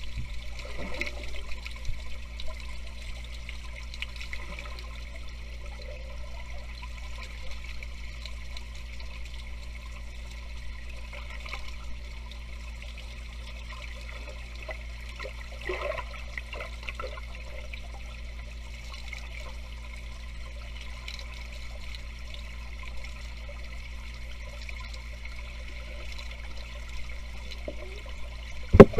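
Underwater sound picked up by a submerged camera: a steady, muffled low rumble of water with faint gurgles now and then.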